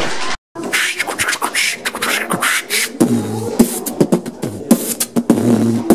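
A man beatboxing: quick sharp mouth clicks and hissing hi-hat sounds, with a few low kick-drum thumps in an uneven rhythm.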